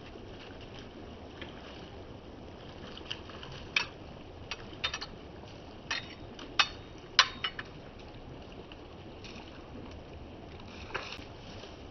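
Trifold knife being handled: a series of sharp, irregular clicks and clacks as its folding handle sections are flipped around and snap into place, over a steady background hiss.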